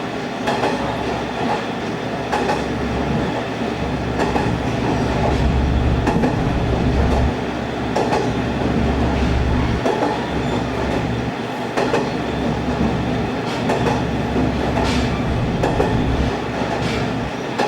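Inside a diesel railcar running between stations: a low engine drone that swells and eases, with wheels clacking over rail joints every second or two.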